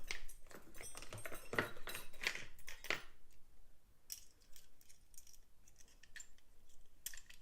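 Steel lock-picking tools, a tension tool and an overlifter, clicking and scraping in an old English lever padlock as they are worked in to lift the levers. A quick run of sharp clicks in the first few seconds gives way to fainter scattered ticks, with a couple more clicks near the end.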